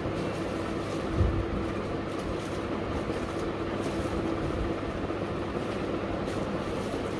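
Steady rumbling background noise with a constant low hum, and one low thump about a second in.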